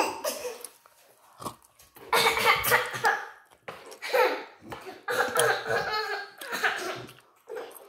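Short vocal bursts from people in a small room, about four over five seconds after a brief quiet start, of the coughing or laughing kind rather than words.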